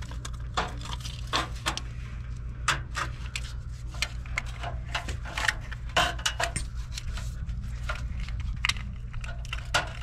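Stainless steel band clamp and shield of a no-hub drain coupling clicking and clinking as it is handled and fitted onto a cast-iron drain pipe, with scattered sharp clicks, over a steady low hum.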